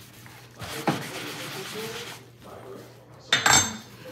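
Metal kitchen items knocking and clanking. A knock about a second in is followed by about a second of scraping noise, then a louder, briefly ringing metallic clank near the end.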